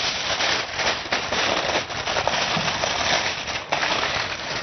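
Aluminium foil crinkling and crackling continuously as it is handled and folded over a baking dish.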